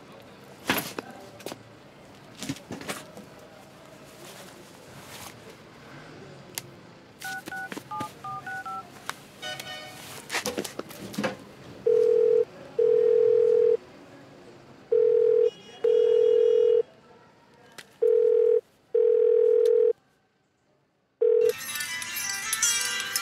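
Mobile phone keypad beeps as a number is dialed, then a telephone ringback tone: a double pulse, short then long, repeating about every three seconds, four times. The ringing cuts off and music starts near the end.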